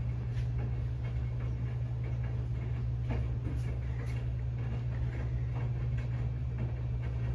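Mainstays hugger ceiling fan running on low speed: a steady low motor hum with faint, irregular ticks.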